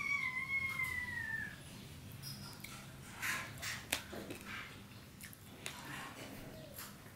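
An animal's drawn-out call for about two seconds at the start, one pitched note sliding slightly down, which sounds like a cat meowing. Then the soft wet smacks of chewing rice and curry eaten by hand, with a few sharp clicks.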